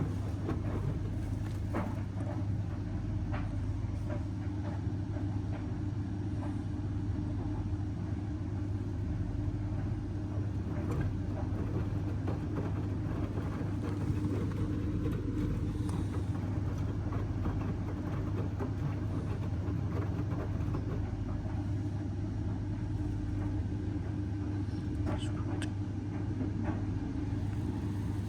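Indesit washing machine running steadily near the end of the main wash on its hot baby cycle: an even, unchanging hum with a few faint clicks and knocks scattered through it.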